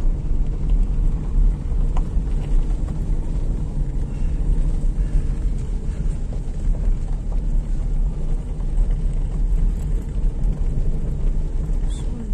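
Car driving slowly along a gravel dirt track, heard from inside the cabin: a steady low rumble of the engine and the tyres on gravel, with a few faint clicks.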